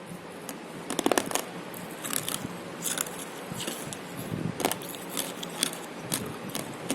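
Close-up biting and chewing of something hard and brittle. There is a loud cluster of crunches about a second in, then irregular cracking crunches every half second to a second.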